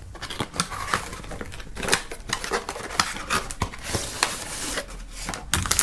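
A small cardboard box being opened by hand and a plastic insert tray slid out of it: scraping and rustling with many small clicks and taps, loudest about four seconds in.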